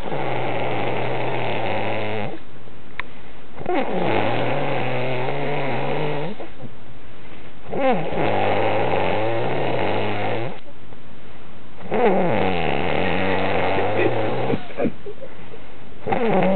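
A person snoring in a slow, even rhythm: four long snores about four seconds apart, each lasting two to three seconds, with a fifth beginning near the end.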